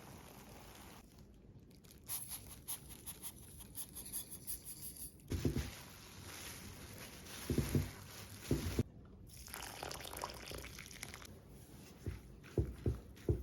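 Ingredients for shio koji (rice koji, salt and water) being poured and mixed in a bowl: grainy rustling and crunching in patches of many small clicks, with a few dull knocks now and then.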